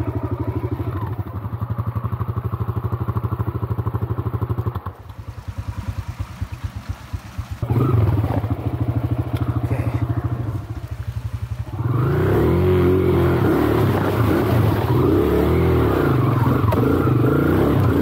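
Trail motorcycle engine at low throttle, dropping to a slow chug of separate firing pulses about five seconds in. It picks up again around eight seconds, then revs harder from about twelve seconds, its pitch rising and falling as the bike works over the obstacle.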